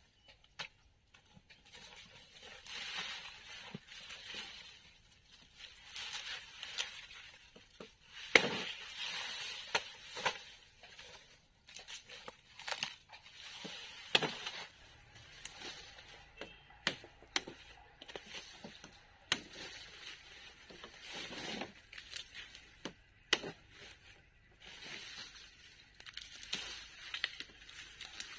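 Irregular crinkling, rustling and tearing handling noises with scattered sharp clicks and knocks, the loudest knock about eight seconds in.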